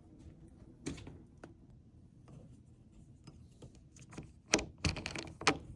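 A door latch clicking, then a cluster of knocks and rattles from a door being pushed against snow drifted up outside it, which keeps it from opening.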